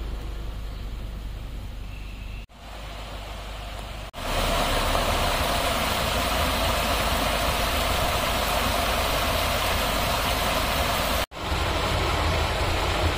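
Isuzu V-Cross pickup truck driving, its engine and road noise running steadily. The sound breaks off abruptly three times, about two and a half seconds, four seconds and eleven seconds in, and is louder after the second break.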